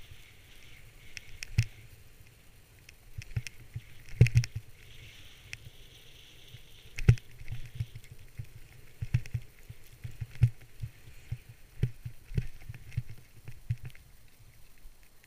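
Helmet-mounted camera carried down a powder slope: hiss of snow rushing under the rider in waves, over a low rumble, with irregular knocks and thumps on the helmet, the loudest about four and seven seconds in.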